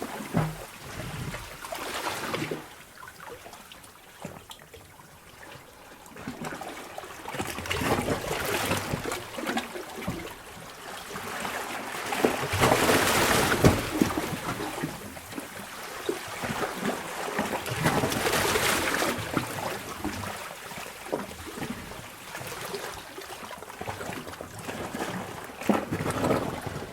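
Sea water sloshing in a cave: waves surge in and drain back several times, with trickling and dripping between, loudest about halfway through.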